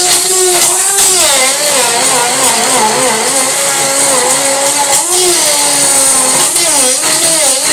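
Hand-held stick blender running in a plastic jug, blending cottage cheese, flaxseed oil, seeds and fruit. Its motor whine keeps rising and falling in pitch as the blade meets the thick mix.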